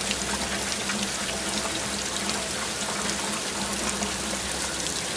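Heavy rain sound effect: a steady hiss of a downpour.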